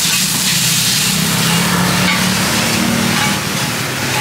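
Pad thai noodles and bean sprouts sizzling on a large flat griddle pan as they are stir-fried with two spatulas. A low hum swells through the middle and eases off near the end.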